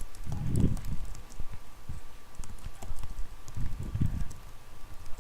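Scattered light clicks and knocks, like computer keys and a mouse being worked, with two low muffled thuds about half a second in and again near four seconds.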